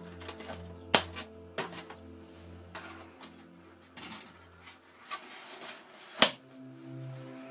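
Sharp clicks and knocks of hands handling a foam RC model plane on its stand. The loudest come about a second in and again near the end, with quieter taps between, over quiet background music that drops out briefly near the end.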